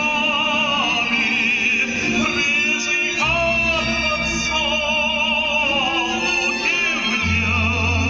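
A man singing with vibrato to accordion accompaniment; the accordion's low bass notes change about three seconds in and again near the end.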